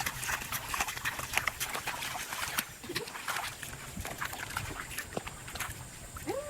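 Animal noises made up of a dense run of short clicks and smacks, with a couple of faint low calls.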